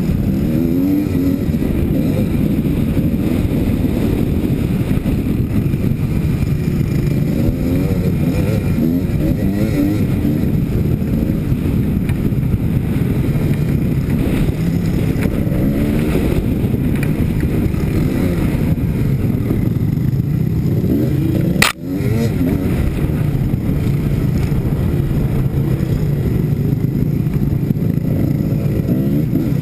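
Kawasaki KDX220's two-stroke single-cylinder engine running under load, its pitch rising and falling with the throttle. One sharp knock about three-quarters of the way through.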